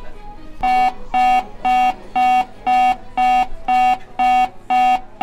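Shop anti-theft security gate alarm beeping: about ten short electronic tones, two a second, each at the same steady pitch.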